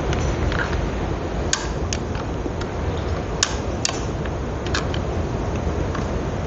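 About five light, sharp clicks and taps of metal soldering tools against the connector while it is being tinned, spaced irregularly over a steady low background hiss.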